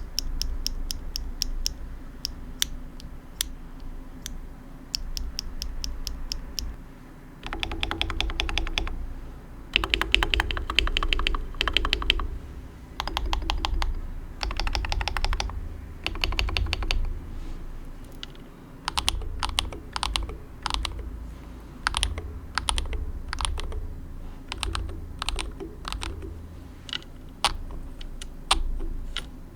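Keys of a DAREU COOL68 8K keyboard with magnetic (Hall-effect) switches being pressed to check how the keys and stabilizers sound. The presses come in quick runs of rapid clicks through the middle, then as more spaced single strokes in the last third.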